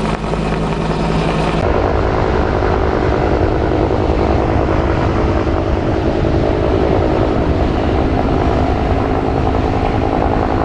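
Bell 205A-1 Huey helicopter's single turboshaft engine and two-bladed main rotor running steadily as it flies overhead and away. The sound changes abruptly about a second and a half in, then stays steady.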